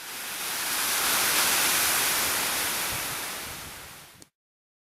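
Sea surf breaking on a rocky pebble shore, a steady rush of water that swells up, slowly fades, and cuts off abruptly about four seconds in.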